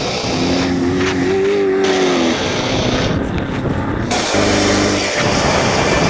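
Off-road race car engines running hard at high revs, in quick cuts. A rising rev comes about a second in, and a lower, steadier engine note near the end.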